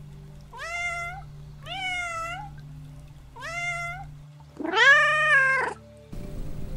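Domestic cat meowing: three short, similar meows, then a louder, longer meow. Near the end the sound cuts to a cat purring.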